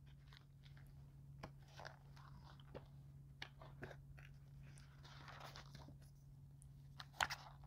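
Faint rustling and light clicks of paper pages being flipped in a spiral-bound booklet, with a slightly sharper click near the end, over a steady low hum.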